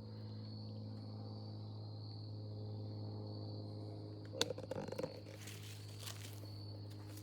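An airplane passing overhead, a steady low drone, with insects calling steadily in the background. A sharp click and a short rustle come about four seconds in.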